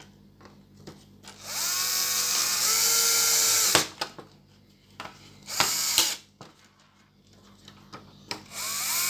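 Cordless drill-driver driving screws into a circuit board's mounts in bursts: a run of about two seconds that spins up with a rising whine and then drops in pitch as the screw seats, a short burst about two seconds later, and another run starting near the end.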